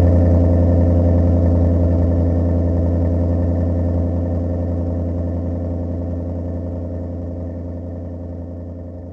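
Electric garage door opener running as a sectional garage door lowers: a steady mechanical hum that slowly fades.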